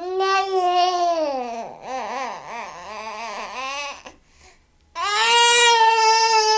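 Baby crying: a long wail that sinks in pitch, then a wavering, sobbing stretch, and after a short pause about four seconds in, another long, steady wail.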